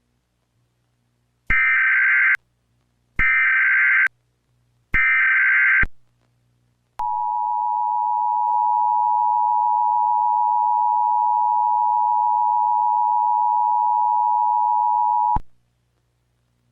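Emergency Alert System header: three short bursts of screechy SAME data tones, then the two-tone EAS attention signal held steadily for about eight seconds before cutting off.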